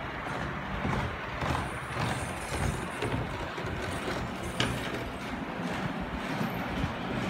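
HO-scale model freight train running on the layout track: a steady motor hum and rumble with scattered clicks from the wheels on the rails, one sharper click about four and a half seconds in.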